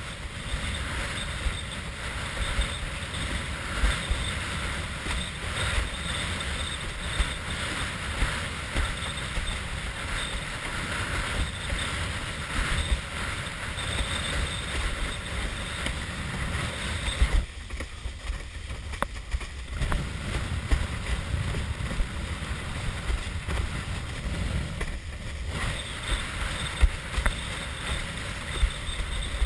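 Wind buffeting a head-mounted action camera's microphone, over water rushing and slapping against a windsurf board sailing through chop. It dips briefly a little past the middle.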